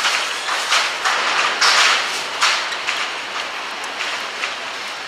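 A hand tap in a T-handle tap wrench scraping as it is turned down a freshly cut bolt thread in a steel wheel hub carrier, in several short strokes, clearing leftover swarf from the thread.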